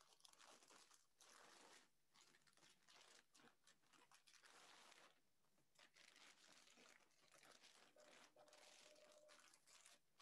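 Near silence with faint, irregular rustling and crinkling of paper as bid documents are handled.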